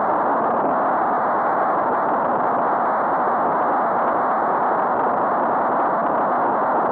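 Steady rushing wind noise on a cycling helmet camera's microphone.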